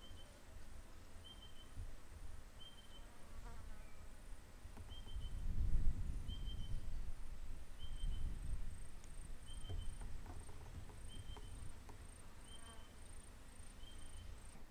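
Insects chirping in a steady rhythm: a short chirp a little over once a second, with a faster, higher ticking above it. A low rumble of wind on the microphone swells about six seconds in.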